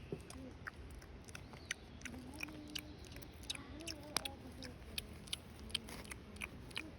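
Irregular soft clicks and smacks of pretend or real eating, with a faint voice murmuring underneath.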